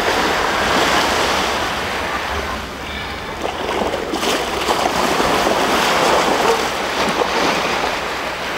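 Ocean waves breaking and washing on the shore, surging and easing in slow swells.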